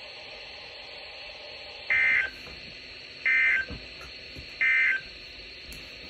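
Three short, shrill electronic data bursts about 1.3 seconds apart, played through weather radio receivers. They are the EAS SAME end-of-message tones that close a NOAA Weather Radio alert broadcast.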